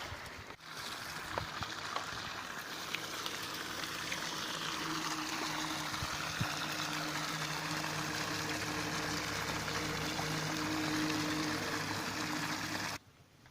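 Water rushing and pouring, with a steady motor hum underneath; both cut off abruptly near the end.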